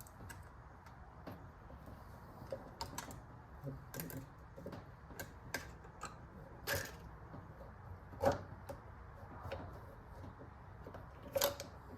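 Hand tools and metal parts clicking and knocking as a dirt bike is taken apart: scattered light, irregular clicks, with a few louder knocks in the second half.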